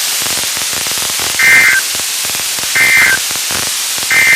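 Three short warbling bursts of NOAA Weather Radio SAME digital data tones, about a second and a half apart, over steady radio static. They are the end-of-message code that closes a Required Weekly Test broadcast.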